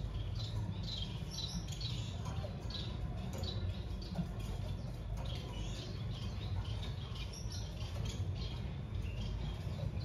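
Finches chirping: many short, high chirps in irregular succession, over a steady low hum.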